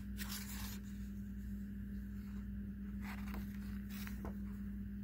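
Paper pages of a picture book rustling as they are turned, in two short rustles: one just after the start and another about three seconds in. A steady low hum runs underneath.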